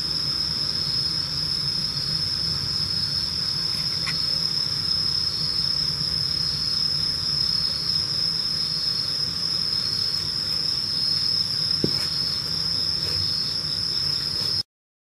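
Crickets singing, a continuous high-pitched trill that never pauses, over a faint low hum. The sound cuts off abruptly near the end.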